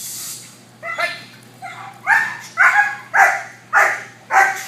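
Young German Shepherd puppy barking in a fast series of high, sharp barks, about two a second and getting louder, after a brief rush of noise at the start.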